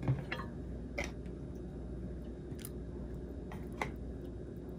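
A few faint, short clicks over a quiet, steady low hum: a metal spoon tapping against a ceramic bowl as minced garlic is added to fish sauce.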